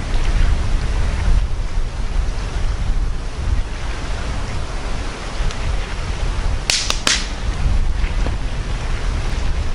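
Wind buffeting the microphone: a steady, uneven low rumble and rush, with two or three sharp clicks close together about seven seconds in.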